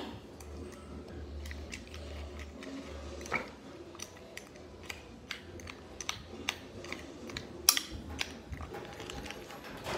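Plastic spoon stirring kibble through raw egg in a ceramic bowl: irregular light clicks and taps of spoon and kibble against the bowl, with a sharper knock about three seconds in and the loudest near eight seconds.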